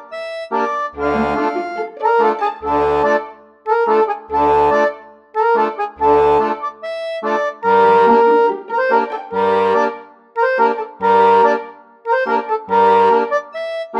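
Background music: a melody over a low bass note that repeats at an even pace.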